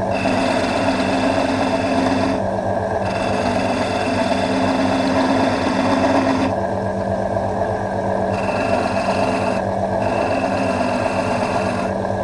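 Small electric motor running steadily, spinning a walnut pen blank on a mandrel, while a hand-held turning tool scrapes the wood down toward the bushes. The cutting sound drops away and comes back several times as the tool is lifted and set back on the blank.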